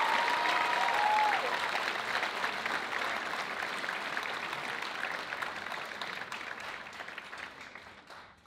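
Audience applauding, a dense patter of many hands clapping that slowly dies away toward the end.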